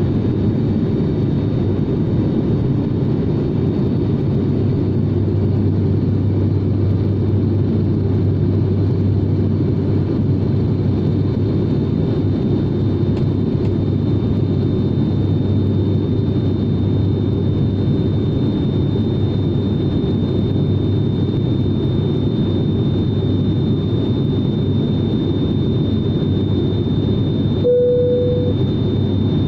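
Cabin noise of a turboprop airliner in flight: the engines and propellers give a steady, even drone, with a thin high whine held over it. A short tone sounds briefly near the end.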